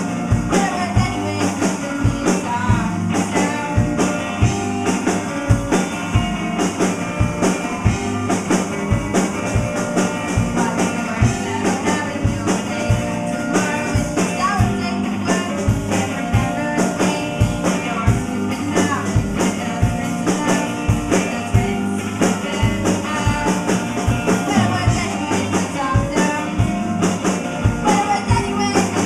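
Live rock band playing a song: guitar and drum kit with a steady drum beat, and a voice singing.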